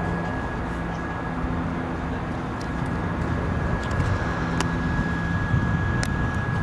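Diesel delivery truck idling close by: a steady engine hum with a thin, steady high whine over it and a few faint ticks.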